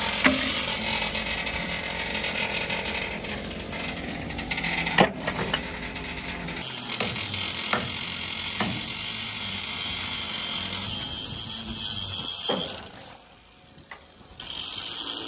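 Rust being chipped and scraped off a ship's steel deck: a steady metallic rattle, broken by about six sharp knocks, that drops away for a second or so near the end.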